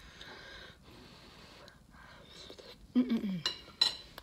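Person eating a mouthful of chili: quiet chewing and mouth noises, then about three seconds in a short voiced 'mmm' falling in pitch, followed by two sharp clicks.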